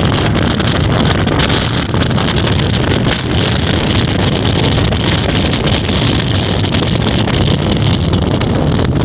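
A passenger ferry's engine running steadily under way, a constant low drone beneath heavy wind noise on the microphone.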